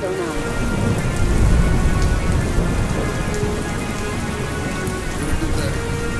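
Steady rain falling, with a low thunder rumble swelling about one to two seconds in, over faint music.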